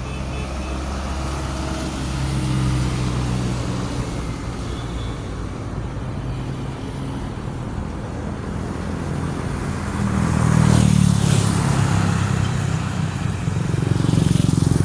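Street traffic: vehicle engines running steadily, with a louder vehicle passing close about ten seconds in and another near the end.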